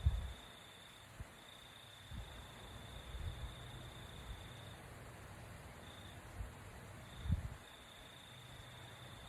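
Cricket trilling: a steady high-pitched note in long stretches with short breaks. Soft low bumps at irregular moments, the loudest about seven seconds in.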